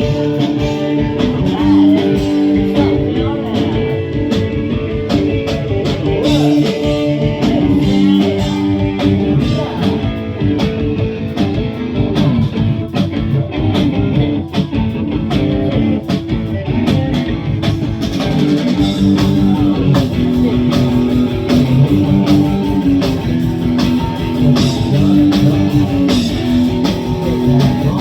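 Rock band playing live: guitar-driven rock with a steady drum beat.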